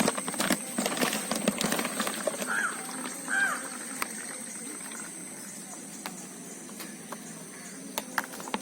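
Outdoor ambience: a run of clicks and knocks in the first two seconds, then two short bird calls about a second apart, over a steady high-pitched whine and a low hum.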